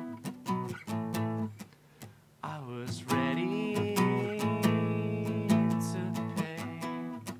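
Acoustic guitar strumming chords, dropping away briefly about two seconds in, then joined by a wordless vocal that slides up into a long held note over the strumming.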